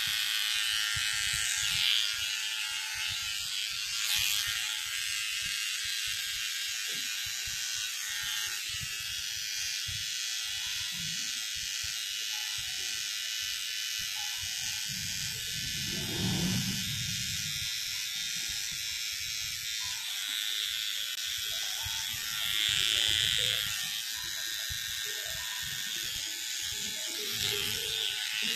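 Electric hair clippers buzzing steadily as they trim the sideburns and front hairline. A brief low rumble about halfway through.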